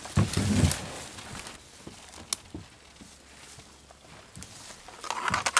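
Footsteps and handling noises on a marshy bank: a cluster of heavy thumps with rustling in the first second, a single sharp click a little past two seconds, and another burst of rustling and knocks about five seconds in.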